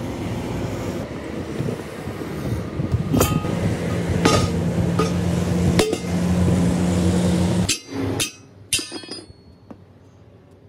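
Several sharp hammer blows on metal over a steady machine hum. The hum stops abruptly about eight seconds in, leaving a few lighter metallic clinks.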